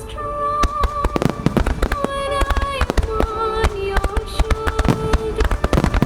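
Fireworks finale: a rapid, dense run of shell bursts and crackling, over music with long held notes that plays along with the display.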